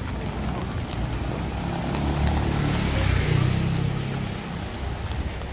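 A car passing on a wet road: a low engine rumble and tyre hiss swell about two seconds in and fade again a couple of seconds later, over a steady background hiss.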